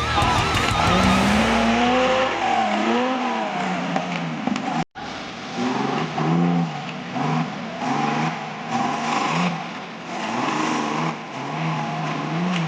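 Off-road 4x4's engine revving, its pitch rising and falling. After a brief break about five seconds in, it goes in short repeated throttle bursts.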